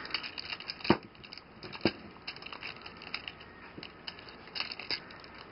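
Plastic parts of a Henkei Red Alert Transformers figure being worked by hand during transformation: light ticking and scraping, with two sharper clicks about one and two seconds in as parts snap into place.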